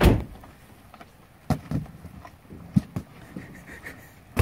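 A cow biting and chewing raw pumpkin, making a series of sharp, wet crunches at uneven intervals. The loudest crunch comes at the very start.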